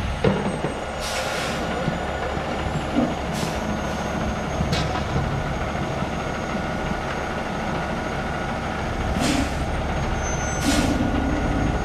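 Concrete mixer truck's diesel engine running steadily while it discharges concrete down the chute, with several short hisses.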